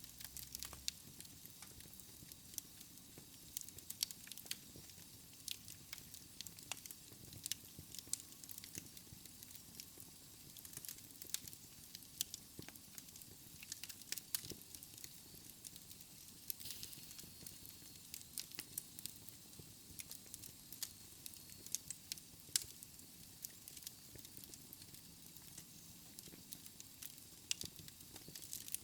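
Wood fire crackling in a fireplace, with frequent irregular sharp pops and snaps over a soft steady hiss.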